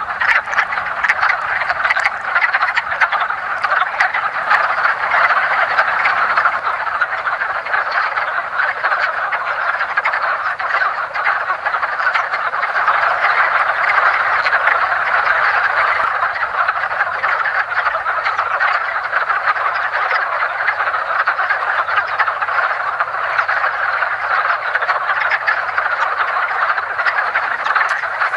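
A dense breeding chorus of many male wood frogs calling at once, their short croaks overlapping into one steady din.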